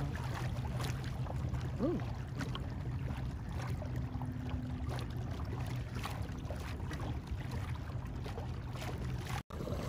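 Kayak on open water: steady low wind-and-water noise with light, scattered splashes against the hull, and a short 'ooh' about two seconds in.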